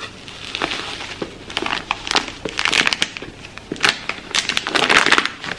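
Plastic crinkling and clicking as a clear plastic food container is handled, in irregular bursts that are densest about two and a half seconds in and again near the end.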